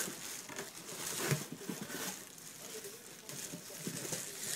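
Plastic wrapping crinkling and rustling in irregular bursts as it is handled and pulled off.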